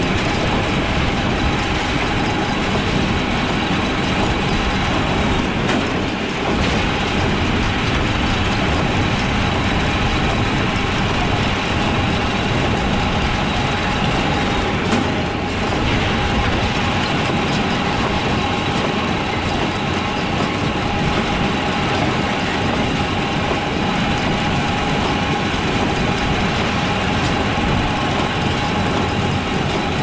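Steel hay wagon rattling steadily as it is towed over a hayfield behind a running New Holland 570 small square baler and its Case IH Maxxum 5140 tractor.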